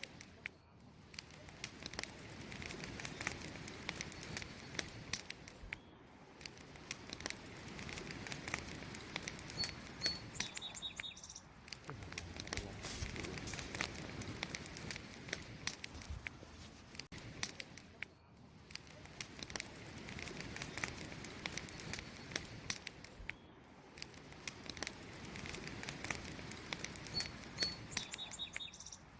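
Wood campfire crackling and popping steadily, swelling and easing every few seconds. A faint bird chirp comes twice, about a third of the way in and near the end.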